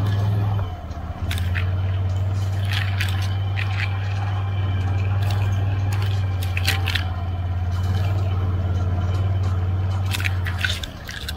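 Can-Am Outlander XMR 650 ATV's V-twin engine running at a steady low speed, with short sharp noises scattered over it. The engine note dips briefly near the start and again near the end.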